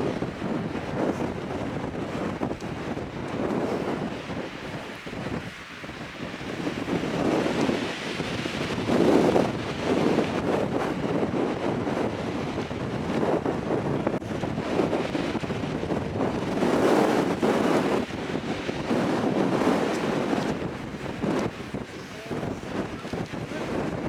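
Strong gusting wind, around 30 miles an hour, buffeting a camera microphone despite its windscreen: a rumbling rush that swells in gusts, loudest about a third of the way in and again past two-thirds.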